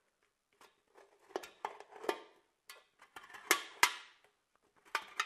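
Utility knife blade cutting through the thin aluminium wall of a drink can along a scored line: a string of irregular sharp crackles and scrapes, loudest a little past the middle.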